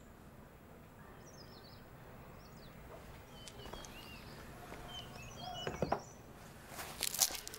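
Small birds chirping faintly over a low background hush, with a few sharp clicks or knocks about six seconds in and a louder cluster of them near the end.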